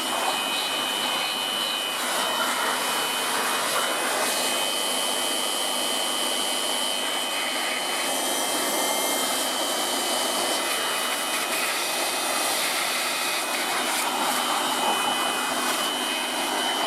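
High-pressure washer spraying water in a steady, unbroken hiss, with a thin high whine running through it.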